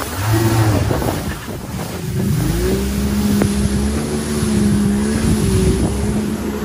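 Jet ski engine running at speed, with wind buffeting the microphone and water spray hissing. The engine note rises about two seconds in and then holds steady.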